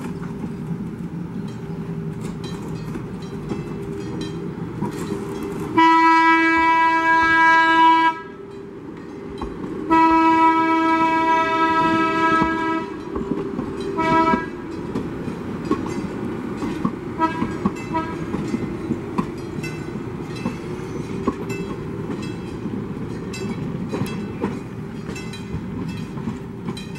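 San Diego MTS light rail trolley sounding its horn: two long blasts and a short one. It then rolls past with a steady rumble, its wheels clicking over the rail joints.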